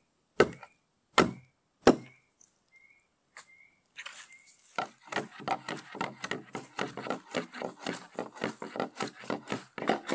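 Three sharp, heavy knocks about 0.7 s apart, with a small repeated chirp between them. From about five seconds in comes a fast, uneven run of crackling knocks, several a second.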